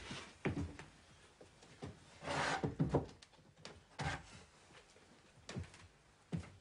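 Wooden chairs scraping and knocking as diners sit down at a table, a series of short knocks with one longer scrape about two and a half seconds in.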